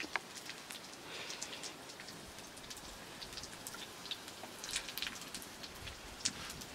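Faint pattering and ticking of wet, squeezed mustard greens dripping and being handled in a plastic bowl, over the steady hiss of a wood cooking fire under a pan.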